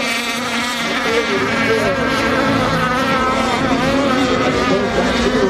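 Several radio-controlled racing catamarans running flat out, their motors making a steady high whine, with several pitches wavering up and down as the boats pass.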